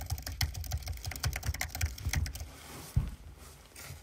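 Fast typing: a quick run of key clicks for about two and a half seconds, then a few scattered clicks and a single thump about three seconds in.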